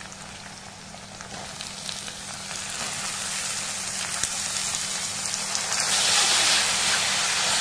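Onion-tomato masala sizzling in hot oil in a kadai. Soaked chana and masoor dal are tipped in and stirred with a steel spoon, and the sizzle grows louder and hissier from a few seconds in, with a few light scrapes.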